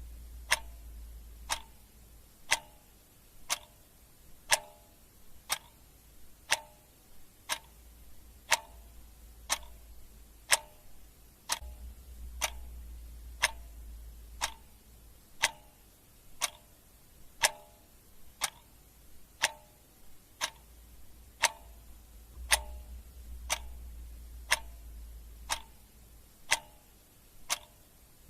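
Clock ticking steadily at about two ticks a second, an even tick-tock rhythm, with a faint low hum swelling and fading beneath it.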